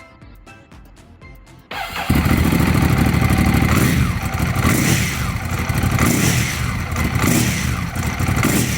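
Ducati Monster 821's L-twin engine started on the starter and running, loud, its level rising and falling about once a second. The bike has a mechanical fault that makes it run badly with an abnormal engine noise.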